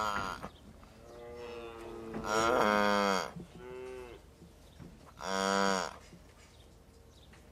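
Calf mooing: a series of short moos with pitch falling at the end of each, louder calls about two and a half and five and a half seconds in, with quieter ones between.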